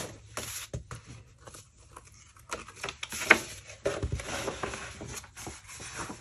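Sheets of scrapbook pattern paper being handled and leafed through: irregular rustles, slides and light taps, with one sharper tap a little after three seconds in.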